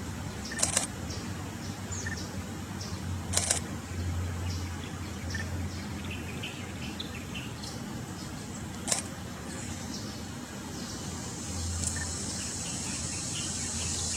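Short, high, scattered chirps from white-eyes over outdoor background noise, with three sharp clicks about a second, three and a half seconds and nine seconds in. A high steady insect buzz, like crickets, grows in near the end.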